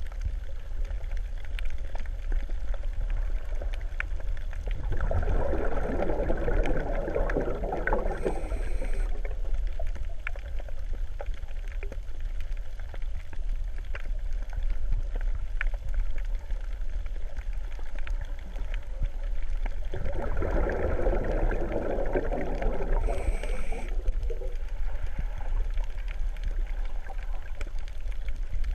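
Underwater ambience: a steady low rumble with water gurgling, swelling into a louder wash twice, about fifteen seconds apart.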